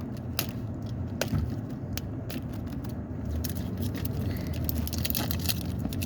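Paper wrapper of a Pokemon surprise ball being picked at and torn: scattered crackles, scrapes and small clicks over a low steady rumble.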